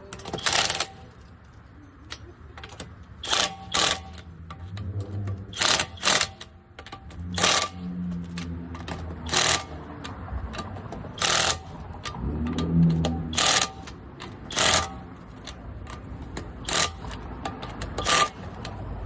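Hand tools working on a car's front brake parts: a string of sharp metal clanks and scrapes, about one every second or two, over a low hum.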